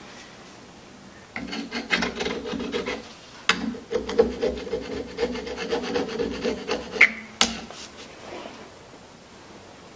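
A metal tool scraping and prying at the plastic casing of an Optima AGM battery's spiral-wound cells, in two runs of rapid rasping strokes. Sharp cracks come about three and a half seconds in and twice around seven seconds, then it goes quiet.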